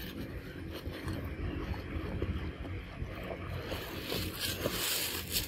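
Dry leaves rustling and crackling as a baby monkey handles and chews leaves and fruit on leaf-littered ground, over an uneven low rumble. The crackling turns hissier near the end.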